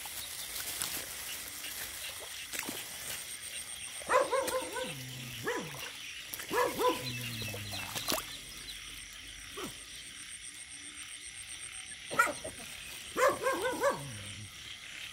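Frogs calling in short bunches of quick, arched croaks a few seconds apart, over a steady background hiss with a fast, even high-pitched pulsing.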